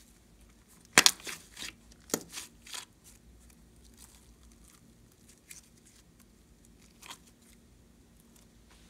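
Green glossy slime being stretched and folded by hand, with a run of sharp pops and sticky crackles from about one second in, lasting about two seconds, as trapped air pockets burst. Two more single pops come later.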